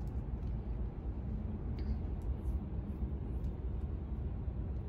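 Steady low rumble of outdoor background noise, with a few faint light ticks.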